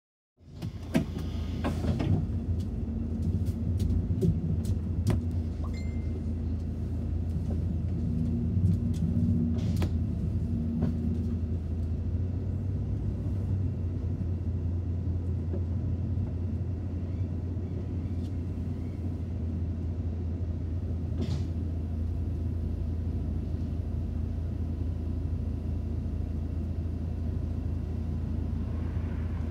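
City bus running, heard from on board: a steady low engine and road rumble with a few clicks and knocks, starting abruptly about half a second in.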